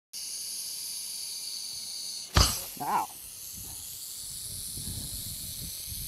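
A snake hissing, a long steady high hiss, with a sharp thump about two and a half seconds in.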